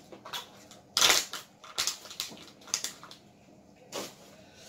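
Ice being chewed: a series of loud crunches over a few seconds, the loudest about a second in.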